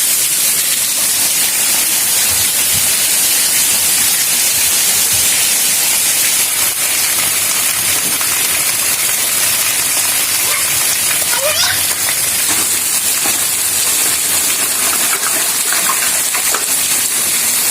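Heavy rain falling steadily, an even hiss, with faint children's voices briefly about two-thirds of the way through and near the end.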